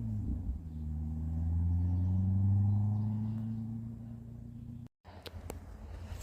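American bullfrog calling: deep, low droning calls, one running into the next, swelling and then fading out after about four seconds. A few light clicks follow near the end.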